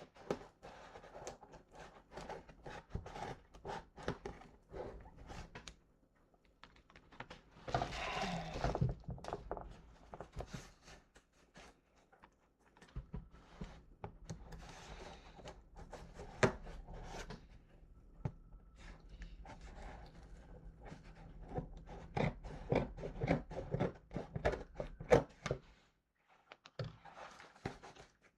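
A shipping package being opened and handled by hand: scattered knocks, clicks and rubbing, with a longer, denser rustling or ripping noise about eight seconds in.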